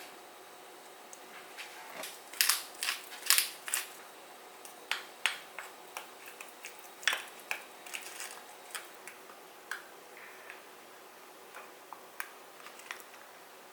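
A run of irregular sharp clicks and taps, thickest about two to four seconds in and thinning out toward the end.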